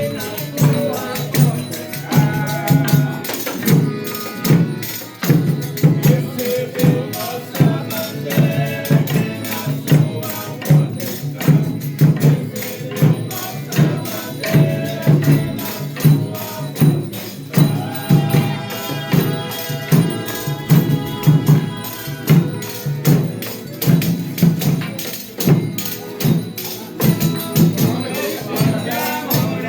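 Folia de Reis ensemble playing and singing: sung verses over a steady drum beat and tambourine, with a longer held chord of voices and instruments in the middle.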